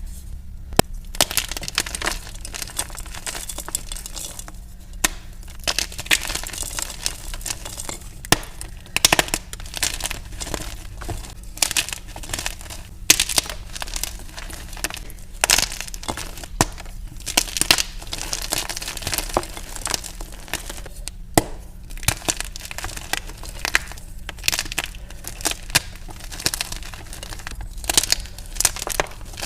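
Blocks of gym chalk being crushed and crumbled: a dense, unbroken run of crisp cracks and crumbling, played back at double speed.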